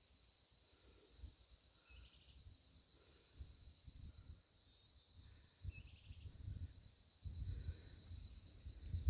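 A steady high-pitched insect trill, cricket-like, with a few faint chirps. Low rumbling thumps come and go and grow louder in the second half.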